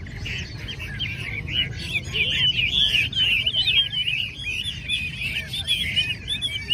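Many caged Chinese hwamei (họa mi) singing at once: a dense chorus of overlapping whistles and warbles that rise and fall quickly, busiest in the middle.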